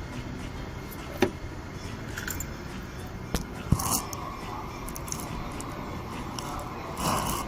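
Toyota Yaris engine idling steadily, with a few sharp metallic clicks and a short jangle of tools or keys over it, about a second in, near the middle and near the end.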